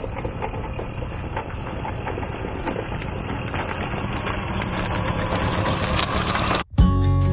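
Tomos moped's small two-stroke engine running with a rattly, knocking note, growing louder as it comes closer. It cuts off abruptly near the end, and guitar music takes over.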